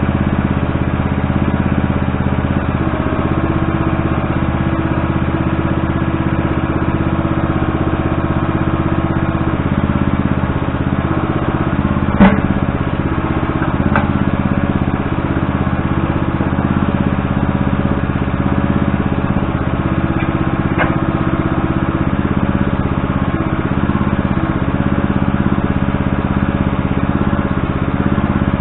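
An engine running steadily at an even speed, with three sharp knocks midway, the first the loudest.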